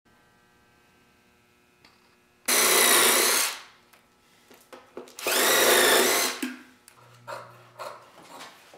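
Power drill running in two bursts of about a second each, its motor whine dipping and rising in pitch. A few soft clicks follow near the end.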